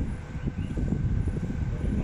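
Mitsubishi Crystal Mover C810A LRT train running: a low, uneven rumble with a faint steady whine above it.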